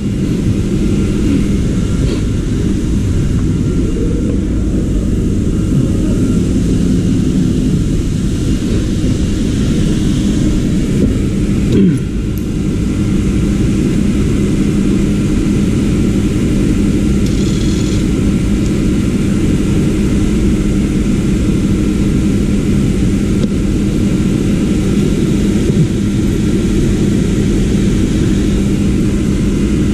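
A motor running steadily: a continuous low drone with a steady hum, and a brief knock about twelve seconds in.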